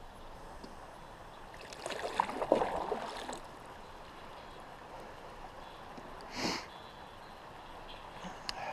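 Kayak paddle dipping and splashing in a river, a cluster of splashes about two seconds in and one short swish of water a few seconds later, over a faint steady rush of current.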